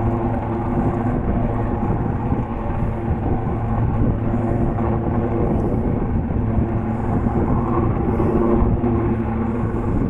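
Two Royal Navy display helicopters flying in formation, making a steady drone with a low hum from their rotors and engines.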